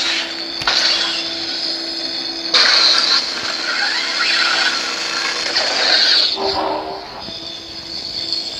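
Sabermach Dark Storm lightsaber's sound font: a steady electronic hum with swelling swing whooshes as the blade is swung, the loudest about two and a half seconds in, easing off near the end.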